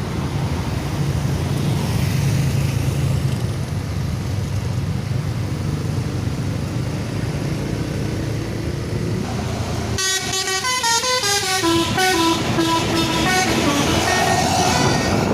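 Bus engine running with a steady low drone for about ten seconds, then the drone cuts off suddenly and a telolet horn plays a quick melody of stepping notes, the musical multi-tone air horn of an Indonesian bus.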